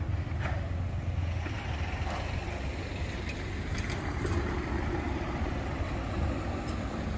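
Street traffic: a steady low rumble of cars driving past.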